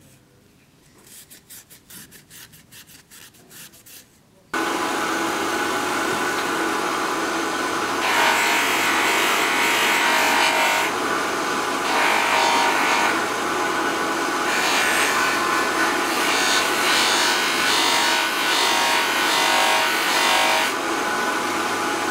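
A wooden knife handle rubbed by hand with an abrasive pad: a run of about a dozen short, soft strokes. Then, about four and a half seconds in, a bench motor's small abrasive wheel sands the handle with a steady hum and a loud scouring noise that swells in stretches as the wood is pressed to the wheel.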